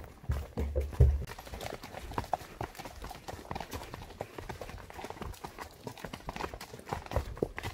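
Hoofbeats of a Tennessee Walking Horse mare: a quick, even run of hoof clops, with a few heavy low thuds in the first second.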